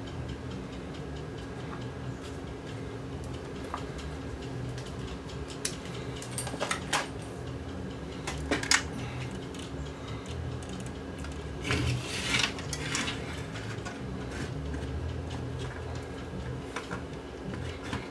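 Light clicks and clatter of tools and a TV chassis circuit board being handled on a workbench, sharpest about 7 s in, near 9 s, and in a cluster about 12 s in.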